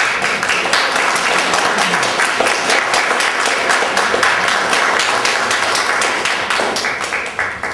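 Audience applauding: dense, steady clapping that starts all at once and dies away at the very end.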